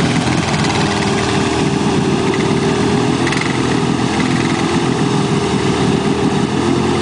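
ATV engine running at a steady pitch under load as the four-wheeler churns slowly through deep mud and water.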